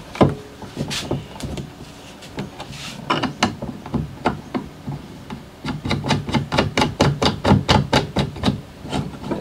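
Fishfinder display mount being adjusted and tightened by hand: a run of sharp plastic clicks and knocks, scattered at first, then quickening to about five a second in the second half.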